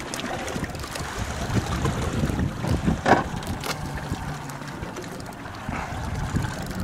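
Wind buffeting the microphone over water sloshing and lapping against a boat's hull at sea, with one short, louder sound about three seconds in.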